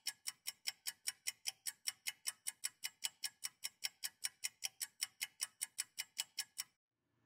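Rapid, evenly spaced clock-like ticking, about five ticks a second, that stops shortly before the end.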